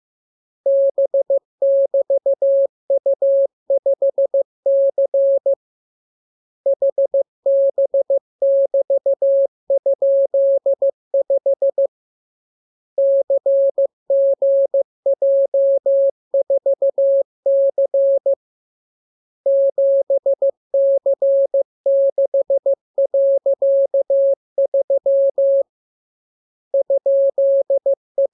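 Morse code (CW) sent as a keyed single-pitch tone, in dots and dashes grouped into five-character code groups with a pause of about a second between groups, as in a receiving-practice radiogram.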